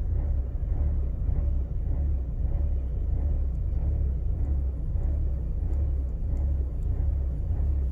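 Mercedes W203 2.0 petrol engine idling rough on a cold start, a low rumble that pulses unevenly about twice a second. The owner says the rough running lasts about a minute after a cold start, with a smell of petrol, and that diagnostics show no fault.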